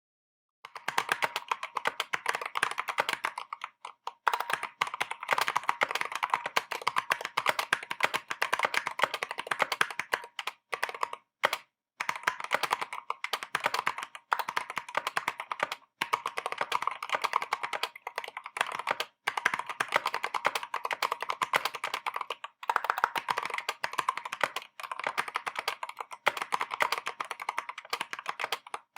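Drop CTRL High Profile mechanical keyboard with tactile Halo Clear switches and stock stabilizers being typed on quickly, in long runs of keystrokes broken by a few brief pauses. The keyboard is new and fresh out of the box.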